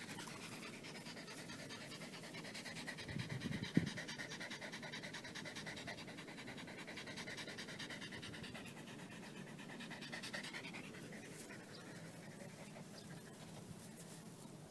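Shiba Inu panting fast and evenly, the panting fading away about eleven seconds in. A single short knock about four seconds in.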